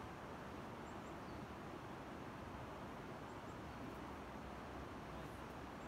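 Steady outdoor background noise with a few faint, high bird chirps now and then.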